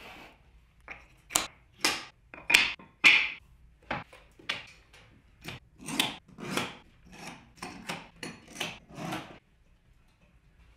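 Steel F-clamps and wooden cauls being set down on boards and clamped in place on a wooden workbench: a quick, irregular run of wood and metal knocks and clacks that stops about nine seconds in.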